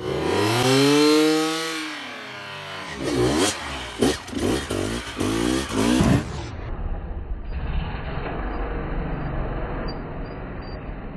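Dirt bike engine revved up and back down, then blipped in several short, quick revs as the bike is wheelied up a rock wall. After about six seconds it gives way to a duller, steadier engine sound.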